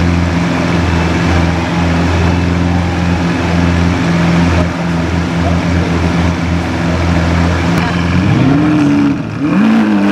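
Lamborghini Aventador V12 idling steadily, then revved twice near the end, the pitch rising and falling each time.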